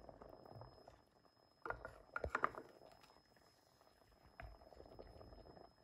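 Faint bubbling of lentils boiling in an aluminium pressure cooker pot. A wooden spoon knocks and scrapes against the pot as the foam is skimmed off, with a quick cluster of clicks about two seconds in and a single knock near the middle.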